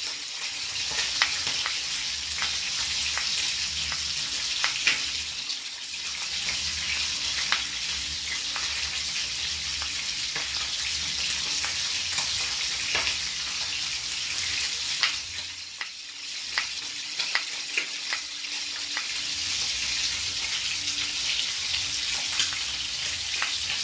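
A kitchen knife slicing garlic cloves on a wooden cutting board, with short taps of the blade on the board, over a steady frying sizzle.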